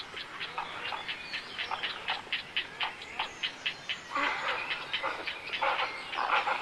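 Birds calling at a nesting colony of herons and great cormorants: a rapid, even chatter of short calls, about five a second, with louder harsh squawks breaking in about four seconds in and again near the end.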